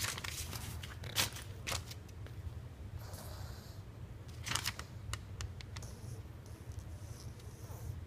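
Scattered rustles, scrapes and clicks of things being handled, louder once about a second in and again about four and a half seconds in, over a steady low hum.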